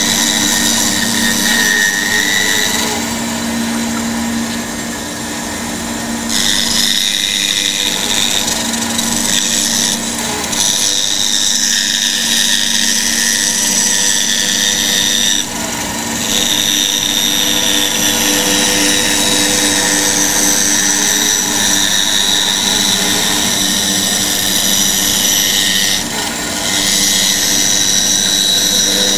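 Bandsaw running and cutting curved shapes out of a wooden board: a steady motor hum under the hiss of the blade in the wood. The cutting noise eases briefly a few times, about 4 s in, midway and near the end.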